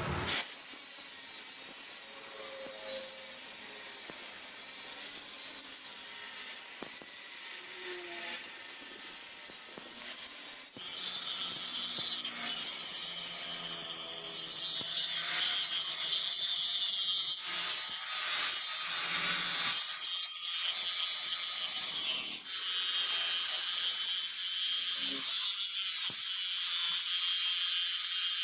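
Electric welding arc crackling and hissing steadily on round pipe, with a few brief breaks.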